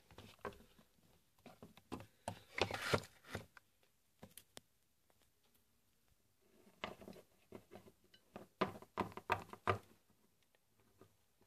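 Light plastic taps and clicks of Littlest Pet Shop toy figurines being hopped by hand across a wooden surface, coming in several quick flurries with quiet pauses between, the longest flurry near the end.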